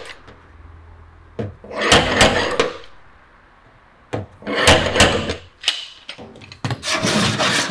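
A hand-held body file scraping across the car's body panel in three long passes of about a second each, with short clicks of the file being set down between them. The filing shows up the high and low spots, and works the panel flat while a dent is dressed out.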